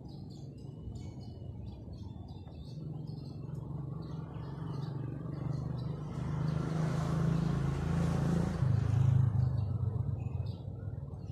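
A motor vehicle passes close by: a low engine hum builds over several seconds, is loudest about eight to nine seconds in, drops in pitch and fades. Birds chirp at the start and again near the end.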